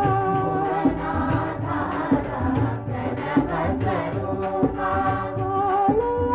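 Vintage devotional bhajan music: held, chant-like sung notes over a slow drum beat.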